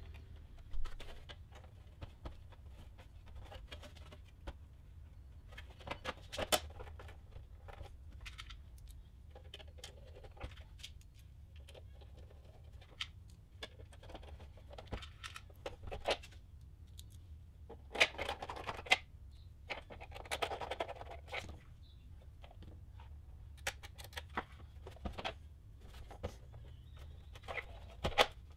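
Reassembly handling of a Tektronix TDS2024C oscilloscope: scattered clicks, knocks and scraping as the plastic case parts are fitted and a hand screwdriver drives screws into the rear housing, over a faint low hum.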